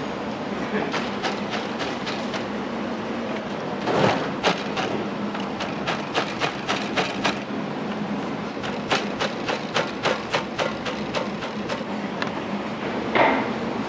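Working restaurant-kitchen clatter: sharp clicks and knocks, in places a few a second, over a steady hiss. A louder rushing burst comes near the end.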